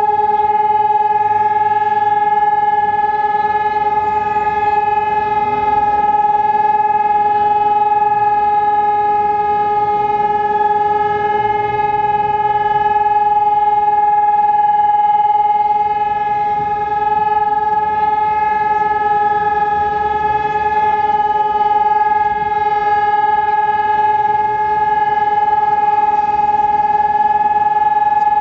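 Civil-defence warning sirens sounding a loud, steady, unwavering tone: the continuous test signal of the monthly Czech siren test.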